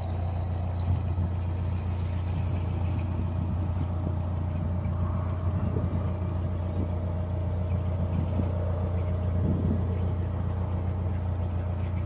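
Narrowboat's diesel engine running steadily while cruising along the canal, a constant low drone.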